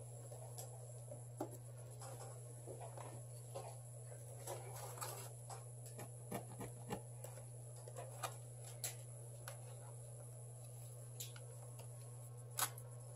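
Scattered light clicks, taps and short scrapes of small hand tools working on a phone, over a steady low hum; the sharpest click comes near the end.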